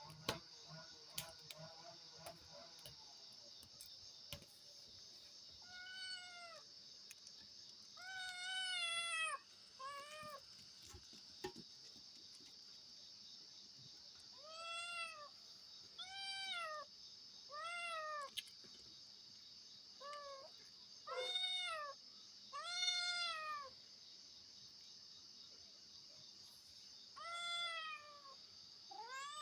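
A cat meowing again and again: about ten short, fairly high meows, each rising then falling in pitch, coming singly and in pairs with gaps between, over a steady high hiss.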